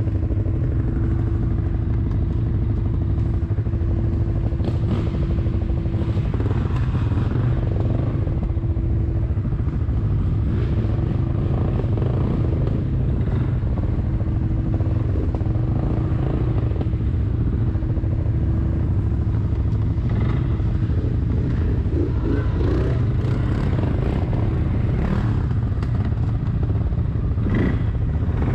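Quad bike (ATV) engine running steadily at cruising speed on a dirt track, with a steady whine over the low engine note and the machine rattling over the bumps. In the last several seconds the rattles and knocks come thicker.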